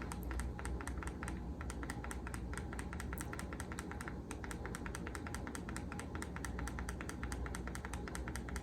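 Rapid, even clicking, about eight or nine small clicks a second, over a low steady hum.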